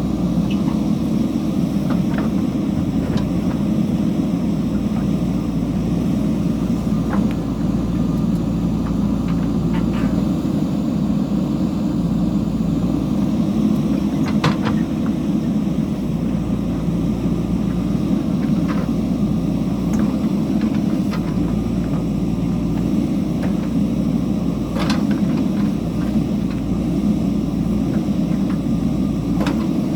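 JCB backhoe loader's diesel engine running at a steady speed, with a few faint knocks from the working machine.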